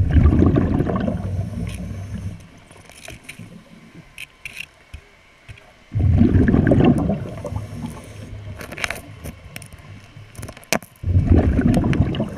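Scuba diver exhaling through the regulator: three gushes of bubbles about five to six seconds apart, each starting suddenly and fading over a couple of seconds, with faint clicks in between.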